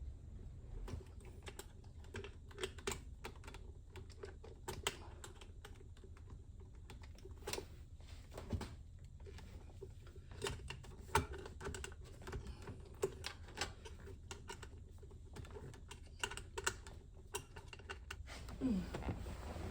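Irregular metal clicks and taps of a hand tool slowly turning a fastener on a steering wheel, a few clicks at a time with short pauses.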